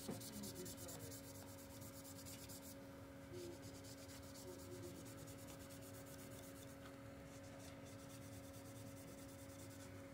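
Faint scratchy rubbing of an alcohol-dampened napkin wiping the metal battery bay of a MacBook Pro, clearing the adhesive-remover film. It pauses briefly near three seconds in and fades out later, over a steady low hum.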